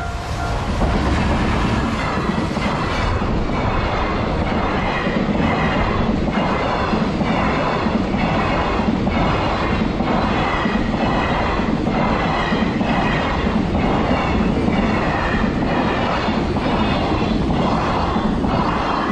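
Freight train passing close by, its wagons' wheels clattering over the crossing and rail joints in a steady rhythm of about one stroke a second, with a faint intermittent wheel squeal.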